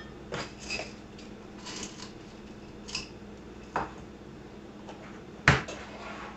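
Small clicks and taps of a spice jar being shaken and handled over a glass measuring cup as granulated garlic is sprinkled into a sauce. There is one sharper knock about five and a half seconds in, and a smaller one a little before four seconds.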